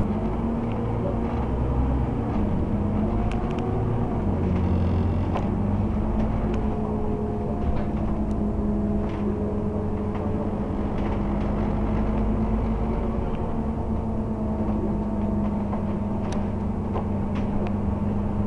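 Scania OmniCity double-decker bus under way, heard from inside its lower deck: the engine and drivetrain drone steadily, with a faint whine that drifts up and down in pitch and a few light clicks and rattles.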